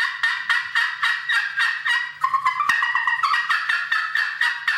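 Wood-pot, glass-surface friction turkey call (pot call) run hard with a striker: a loud, fast string of sharp hen cuts and yelps, about five notes a second. This is cutting, used to cut through wind and strike a distant gobbler.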